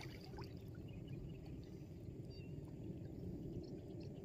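Water moving and trickling around a small boat, over a steady low rumble, with a few faint light knocks.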